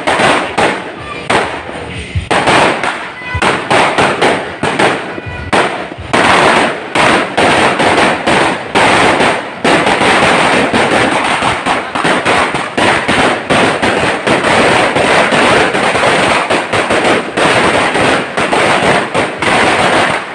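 A 1,000-round sawa firecracker string ("Solid Nitro") going off on the road, a rapid rattle of sharp bangs. The bangs come with short gaps at first, then thicken into an almost unbroken crackle about six seconds in.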